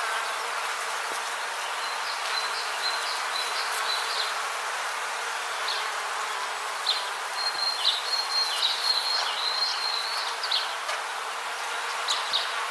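Rainforest ambience: a steady insect drone with runs of short, high chirping calls, one a couple of seconds in and a louder one over the second half.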